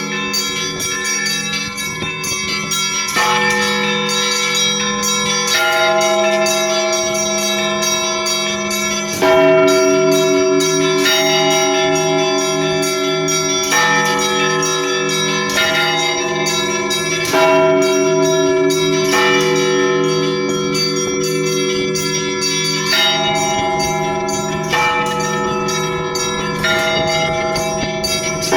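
Russian Orthodox church bells ringing: several bells of different pitches struck in changing combinations every second or two, their tones ringing on into one another over a steady low hum.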